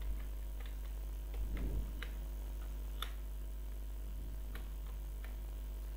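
Computer keyboard keys being pressed one at a time as a password is typed: a few faint, separate clicks at uneven intervals over a steady low electrical hum.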